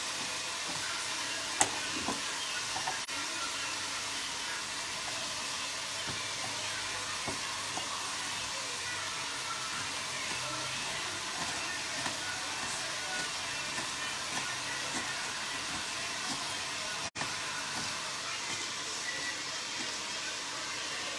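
Steady hiss of vegetables sautéing in olive oil in a pot, with occasional knife taps on a wooden chopping board, one sharper about a second and a half in.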